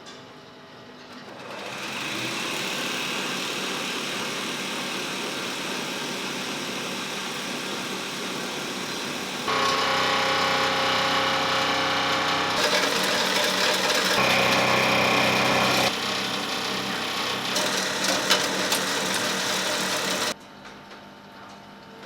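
Button-production machinery in the polyester-rod stage running steadily, with a mechanical hum and hiss. The machine sound changes abruptly several times and drops away near the end.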